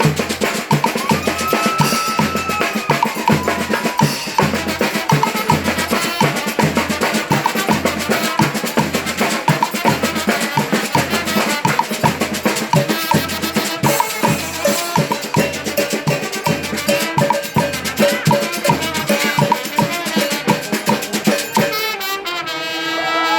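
Street brass band with drums playing: surdo bass drums beat a steady pulse under rattling snare (caixa) and trumpets, trombones and saxophones. Near the end the drumming drops away and the horns play on alone.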